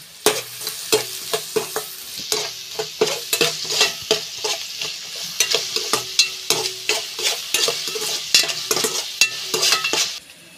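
Chopped onion frying in hot oil in a kadai, sizzling while a wooden spatula stirs it, with many quick scrapes and taps of the spatula against the pan. The sizzle and stirring stop shortly before the end.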